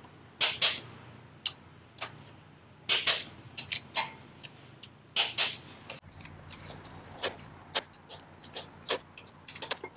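Hand ratchet wrench clicking in short runs as the flywheel bolts are run down and snugged in a cross pattern, with a few louder clicks and lighter ticks near the end.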